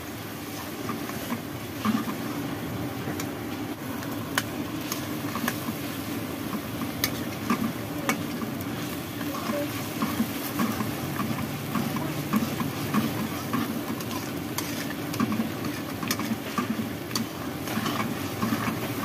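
Spice paste sizzling as it fries in hot oil in a metal kadai, with a metal spoon scraping and clicking against the pan at irregular moments as it is stirred.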